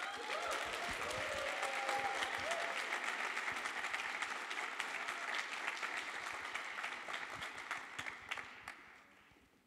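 Audience applauding, with a few cheers in the first couple of seconds. It starts suddenly and dies away over the last two seconds.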